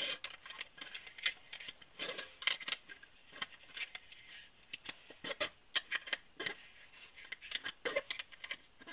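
UpLula pistol magazine loader pressing down a compact 1911 magazine's follower as .45 ACP cartridges are slipped in one after another: a quick run of sharp metallic clicks and snaps, several a second.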